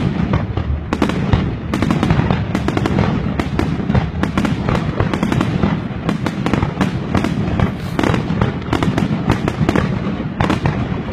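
Fireworks going off in a dense, unbroken barrage: many sharp bangs and crackles a second over a deep rumble of bursting shells.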